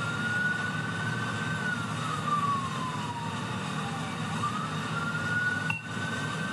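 Police car siren on wail: the tone holds high, slides slowly down, then sweeps quickly back up and holds again. Steady road and engine rumble from the moving patrol car lies underneath.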